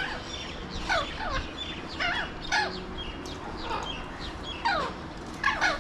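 Alexandrine parakeets calling back and forth: short calls that each sweep down in pitch, coming in quick succession, several overlapping.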